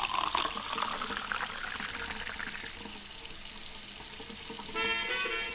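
Tap water running steadily into a sink. Background music comes in near the end.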